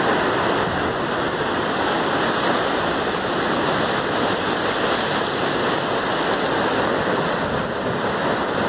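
Steady rush of sea surf along a rocky shore, an even hiss of moving water with slight swells in level and no distinct breaks.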